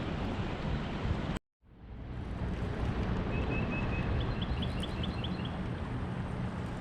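Wind buffeting the microphone over water noise, broken by a sudden cut about a second and a half in, then fading back up. A quick run of short high chirps sounds in the middle.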